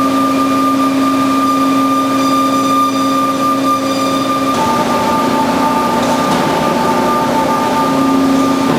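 Band saw running with a steady mechanical hum. About halfway through its pitch steps down slightly and a second, higher tone joins in.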